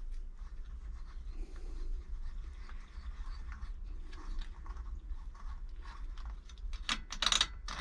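A wrench working loose the bolts of a Yamaha Drag Star's right-side engine (clutch) cover one after another: light metallic clicks and scraping, with a louder clatter of metal about seven seconds in, over a steady low hum.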